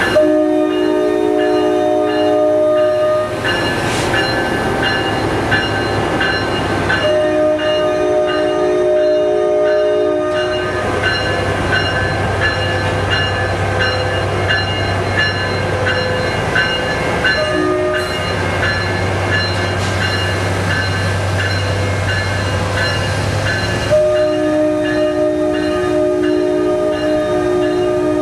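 NJ Transit ALP-45DP locomotive's multi-chime horn sounding the grade-crossing signal: two long blasts, a short one, then a long one as the train approaches. A steady low hum from the locomotive runs beneath, clearest between the blasts.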